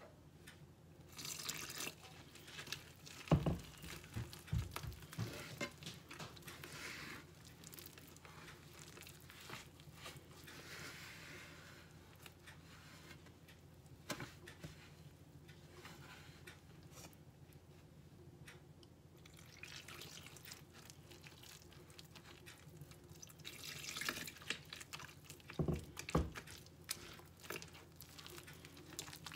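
Water poured from a glass jug into flour in a mixing bowl, and hands working the wet dough, with a few soft knocks as the jug is handled.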